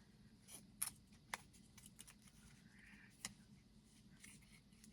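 Faint handling of a small liquid eyeshadow package in the hands: a few light, sharp clicks and taps over near silence.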